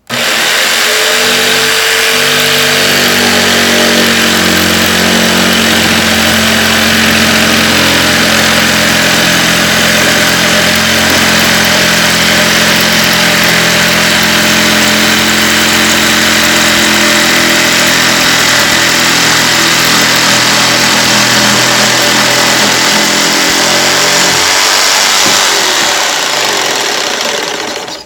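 Corded jigsaw with a diamond-tipped tile blade cutting fiber-cement Hardie board: the motor runs loud and steady with the grinding noise of the cut. It starts at once and stops abruptly near the end.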